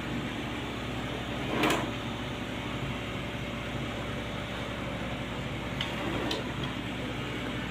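A steady mechanical hum and whir, like a fan or a running appliance. A short knock, the loudest sound, comes about a second and a half in, and two small clicks follow near the end.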